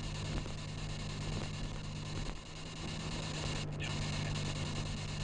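Spirit box radio sweeping through stations as steady static hiss, with a short break in the hiss near the end and a fragment that the uploader takes for a spirit voice saying "just don't". Car road noise hums underneath.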